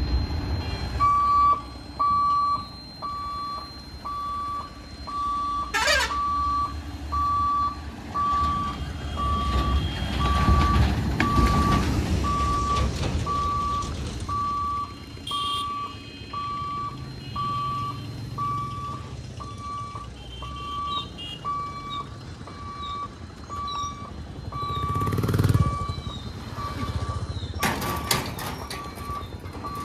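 Level-crossing warning beeper sounding a steady run of short high beeps, about one every three-quarters of a second, while the boom barrier lowers. Road vehicles pass under it, their rumble swelling twice.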